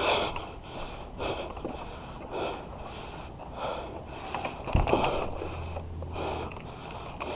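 A player's heavy, even breathing close to the microphone, about one breath every second or so. A few sharp clicks and a thump come about five seconds in.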